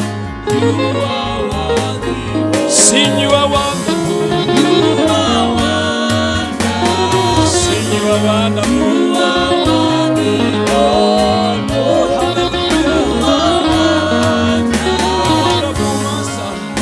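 Live gospel praise and worship music: singing over band accompaniment with a bass line and a steady beat.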